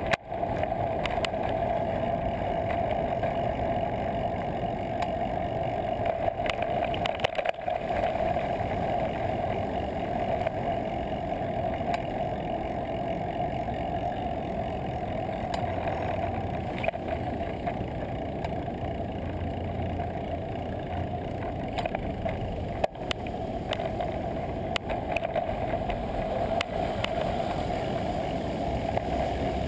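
Steady wind and road noise on a bicycle-mounted action camera while riding, with a constant hum-like band and a few short knocks and clicks from bumps in the road.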